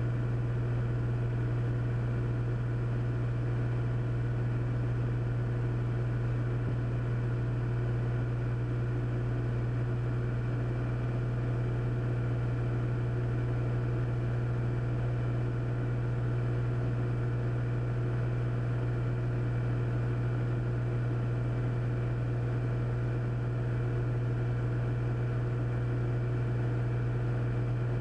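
Steady cabin drone of a Cessna 400's turbocharged six-cylinder engine and propeller in cruise descent, an unchanging low hum with fixed tones above it.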